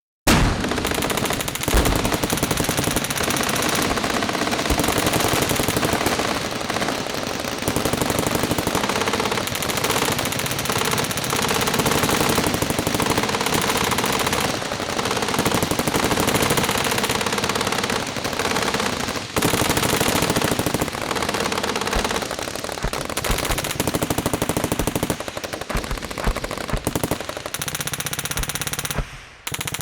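Battlefield gunfire: dense, sustained automatic machine-gun fire with rapid shots running together. It starts abruptly just after the beginning and dies down in the last second.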